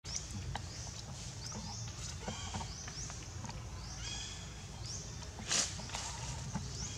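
Short, high, rising chirps from small wild animals repeat about twice a second over a low steady rumble, with a few higher squeaks in the middle and a brief louder hiss about five and a half seconds in.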